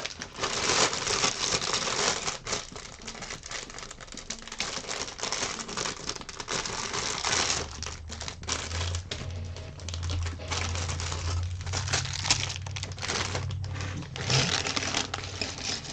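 Plastic Lego parts bag crinkling as it is handled and emptied, with many small clicks of loose Lego pieces being spread out into sorting trays.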